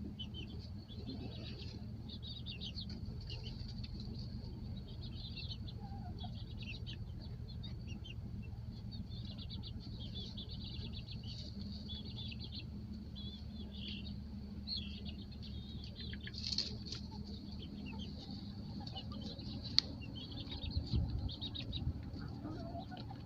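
Baby chicks peeping: many short, high chirps overlapping without pause, over a steady low hum. A single sharp click sounds near the end.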